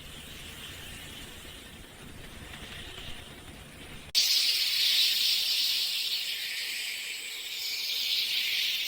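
A faint hiss, then about four seconds in a loud, steady hissing spray starts suddenly and holds.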